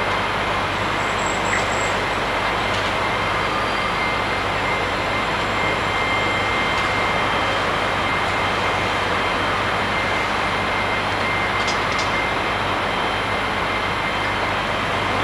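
Steady urban background noise in a city plaza at night: an even hiss and rumble with a faint low hum and a thin high tone.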